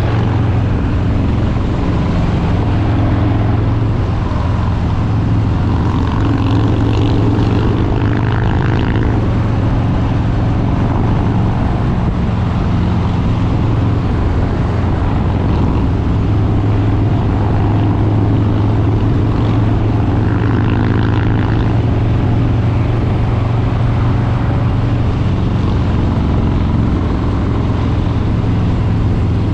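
Harley-Davidson Street Bob 114's Milwaukee-Eight 114 V-twin engine and exhaust running at a fairly steady engine speed while riding, with no big revs or shifts.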